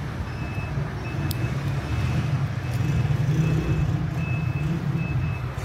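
A steady low engine-like rumble, with a faint high tone sounding on and off in short beeps, and a single light click a little over a second in.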